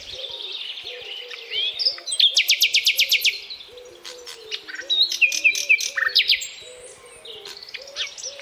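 Nightingale singing: varied phrases of high whistles and fast runs of repeated notes, with a rapid trill about two seconds in and another burst of sharp notes around five to six seconds, fading toward the end.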